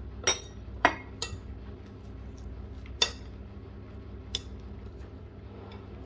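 A metal spoon clinks against a ceramic bowl and plate as sambal is served onto rice. There are five short, sharp clinks in the first four and a half seconds, the loudest about a second in and at three seconds, over a steady low hum.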